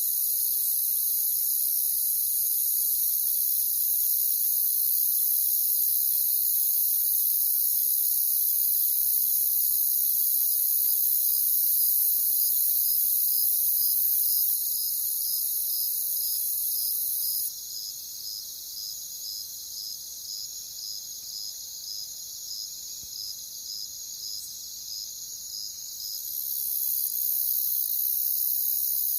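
Crickets chirping in a dense, steady high-pitched chorus. Through the middle, one chirp repeating about twice a second stands out, and the chorus grows quieter for several seconds before picking back up near the end.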